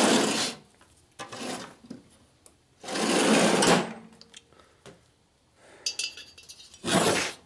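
Tools being rummaged and handled in a drawer under a workbench: four or five short bursts of sliding and rattling, the loudest about three seconds in.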